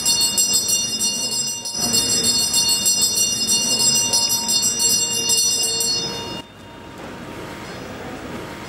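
Puja hand bell rung continuously, a fast steady metallic jangle that stops about six and a half seconds in.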